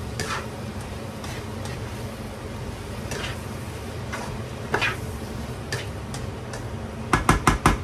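Spatula stirring and scraping stir-fried cabbage and vegetables in a wok, with a few scattered scrapes over faint sizzling. Near the end comes a quick run of sharp taps, the spatula knocked against the pan.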